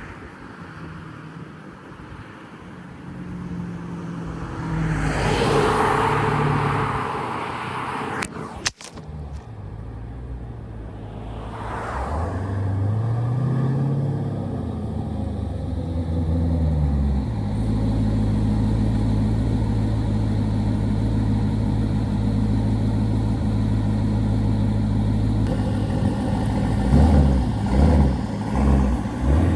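Twin-turbocharged 5.7 Hemi V8 of a Dodge Charger running: a rushing hiss early on, then a rev that rises and falls about twelve seconds in, a steady idle, and a few quick throttle blips near the end. A sharp click comes just before the rev.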